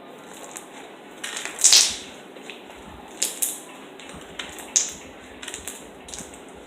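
Slime being squished and pressed by hand, giving irregular wet crackles and pops. A few louder pops stand out among the smaller ones.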